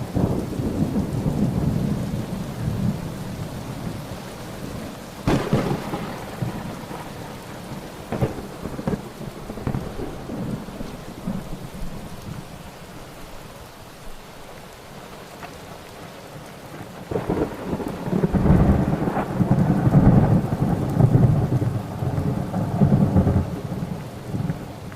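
Thunderstorm: steady rain with rolling thunder. A sharp crack comes about five seconds in, and a long, louder rumble of thunder builds from about two-thirds of the way through and dies down near the end.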